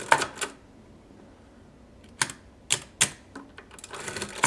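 Monroe L series hand-cranked adding machine's mechanism clicking as the main crank is turned backwards to subtract a number. There are a few clicks at the start, three sharp single clicks a little past the middle, and a short run of clatter near the end.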